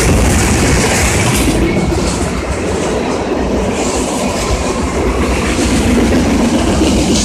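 Freight train of tank cars rolling past at close range: a steady, loud rumble and clatter of steel wheels on the rails.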